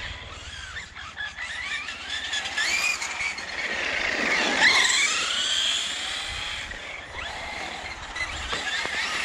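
Radio-controlled car's motor whining as it is driven around, the pitch rising and falling with the throttle. About halfway through it passes close, loudest there, with a steep drop in pitch.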